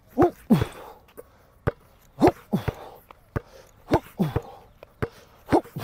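A basketball dribbled hard on a concrete court: about ten sharp bounces in an uneven rhythm as the ball goes through between-the-legs and behind-the-back moves. Short grunts or breaths from the player come with many of the bounces.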